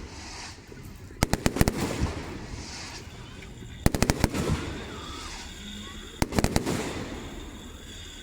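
Fireworks bursting in the sky: three quick volleys of sharp cracks, each a rapid cluster of several bangs, spaced about two and a half seconds apart.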